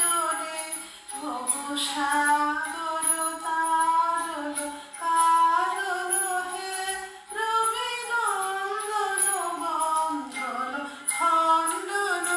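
A woman singing a Guru Vandana, a devotional hymn to the guru, in long held notes that glide from pitch to pitch.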